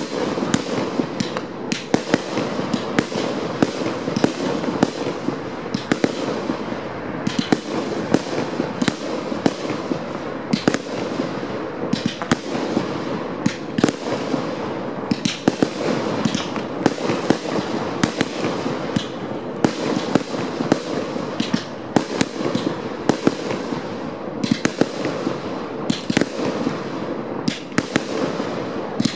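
Aerial fireworks display going off in a continuous rapid string of sharp bangs and cracks, several each second, over a steady background rush with a faint low hum underneath.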